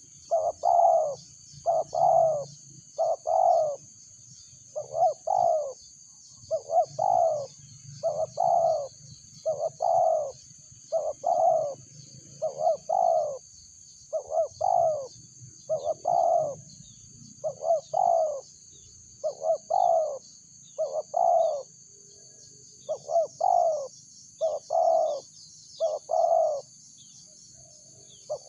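Spotted dove cooing: a repeated two- or three-note coo phrase about once a second, each note dropping in pitch, with a brief pause a little past the middle.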